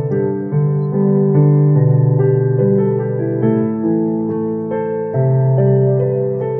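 Electronic keyboard playing a slow Korean pop ballad, a melody over held chords that change every half second or so, with a wavering tremolo on some held notes.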